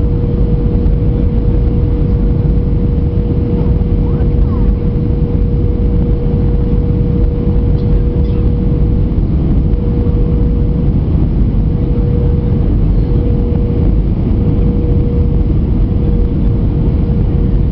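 Airbus A320 cabin noise on final approach: the steady roar of the engines and rushing air, with a steady humming tone that begins to waver about halfway through.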